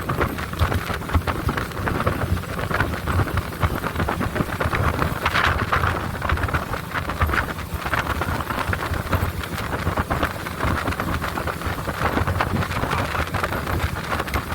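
Steady rushing noise of a boat running down a river: wind buffeting the microphone over the boat's engine and the water.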